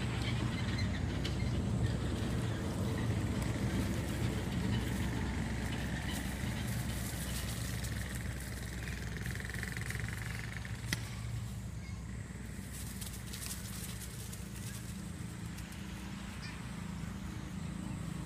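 A motor vehicle engine running steadily, a continuous low hum, with faint high-pitched calls now and then and a single sharp click about eleven seconds in.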